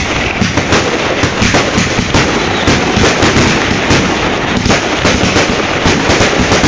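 Aerial fireworks going off in a rapid, unbroken string: bangs and crackling overlap several times a second with no pause.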